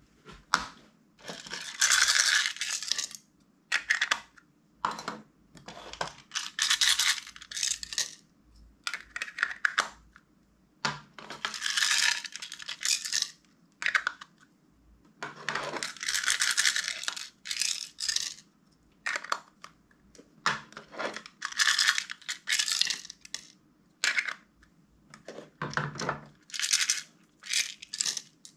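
Clear slime being squished, folded and stretched by hand: repeated bursts of sticky crackling and popping clicks, each up to about a second and a half long, with short pauses between.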